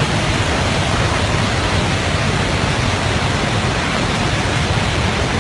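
Torrent of muddy floodwater from a burst dam rushing past, a loud, even rush of noise that does not let up.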